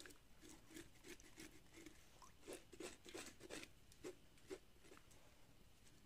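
Knife blade scraping the skin of a scalded carcass held in a basin of water: a run of faint, short scrapes about three a second, louder in the middle and thinning out near the end.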